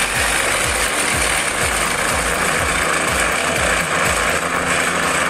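Small electric blender running steadily at full speed, its blades churning a wet spice paste of chilies, shallots and garlic with water into a fine paste.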